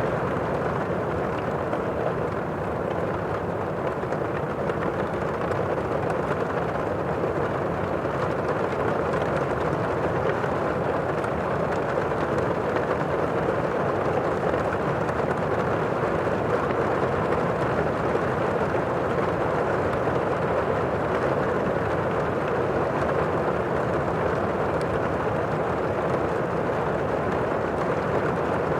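Heavy rain heard from indoors: a steady, muffled rush of rainfall with no distinct drops or thunder.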